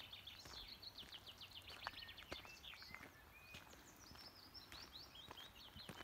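Faint songbirds singing: two quick trills of repeated high notes, each about a second and a half long, with single short whistled notes between them.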